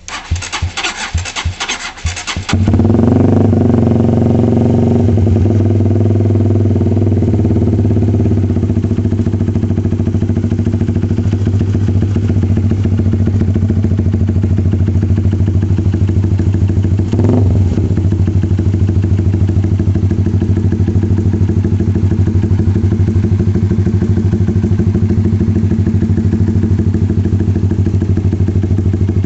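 Honda Sonic 150R's single-cylinder engine cranked over for about two and a half seconds, then catching and idling steadily through an SJ-88 aftermarket exhaust, with a deep, bassy note.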